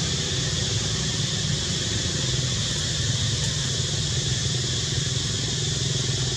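An engine running steadily off-screen, a low even rumble with a constant high hiss over it.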